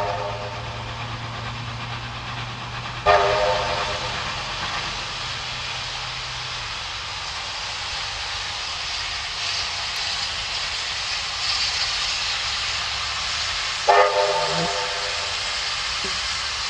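Steam locomotive whistle sounding a blast about three seconds in and a shorter one near the end, over the steady hiss of escaping steam and the engine's running noise.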